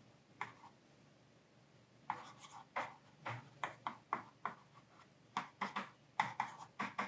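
Plastic stylus writing on the screen of a Portronics Ruffpad 8.5M LCD writing pad: a quiet run of short scratchy strokes and taps as letters are written by hand, with a pause of over a second near the start.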